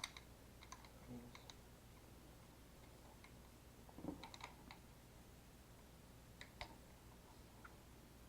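Faint, scattered clicks and taps of small parts being handled, in a few short clusters, over a low steady hum.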